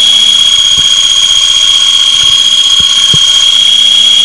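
Woodturning texturing tool's cutter wheel held against a bowl spinning on a lathe, giving a steady, piercing, deafening high-pitched screech at one unchanging pitch as it chatters into the wood to cut a serrated texture.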